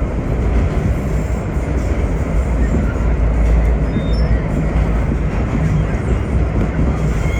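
Vintage R1-9 subway train running along the track, a steady deep rumble of wheels and motors.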